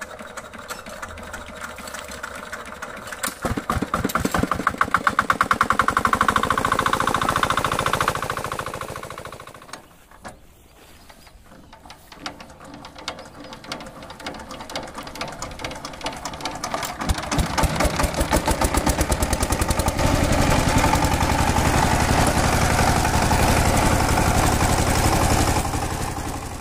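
Single-cylinder horizontal diesel engines being started and run. A water-pump engine fires up about three seconds in and runs with rapid, even firing strokes for several seconds. After a break, a power tiller's engine runs steadily and loudly from about seventeen seconds in, with a rapid beat of firing strokes.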